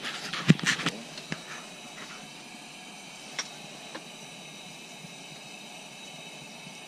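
A few knocks and bumps in the first second or so, then a steady hiss of burning propane from the shelter's heater and lantern.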